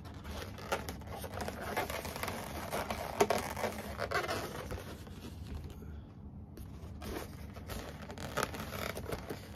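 Inflated latex twisting balloons squeaking and rubbing under the hands as a twisted balloon sculpture is handled and adjusted, in short irregular scrapes.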